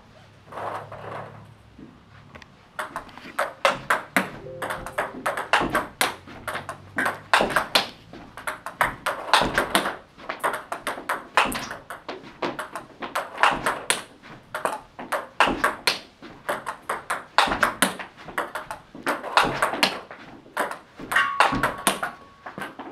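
Table tennis ball clicking off rubber paddles and bouncing on the table in quick, regular runs as forehand topspin strokes are played back and forth, with short breaks between rallies.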